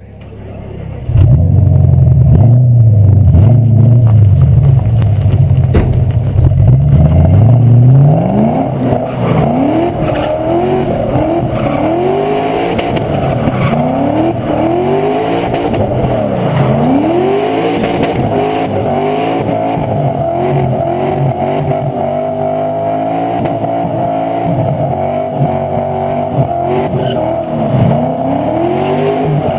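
Drift car's engine, heard from a camera on the car's body. For the first several seconds it holds a loud, steady low note. About eight seconds in, the revs start rising and falling over and over as the car slides, with the tyres squealing under wheelspin.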